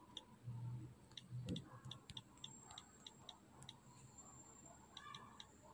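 Typing on a smartphone's touchscreen keyboard: faint, irregular clicks, a few a second, as letters are tapped in.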